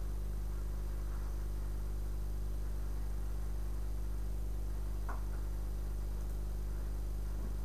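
Steady low electrical mains hum picked up by the recording, unchanging throughout. A faint short sound comes about five seconds in.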